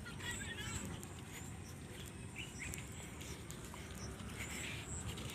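Small birds chirping in short calls several times, over a steady low rumble and a faint, steady high-pitched buzz.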